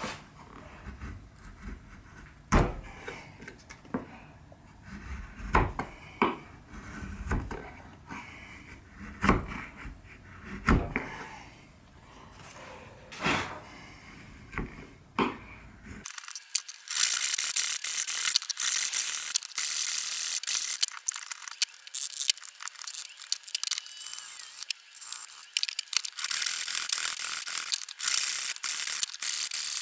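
Hand-tool work on wood: scattered sharp knocks and taps, then about halfway an abrupt change to a dense, fast, scratchy rasping with no low end.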